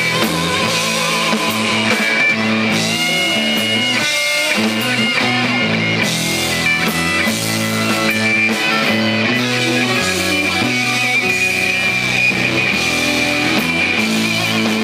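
Live rock band playing: electric guitars, bass guitar and a drum kit, loud and steady, with sustained guitar notes and some bent, wavering lead lines.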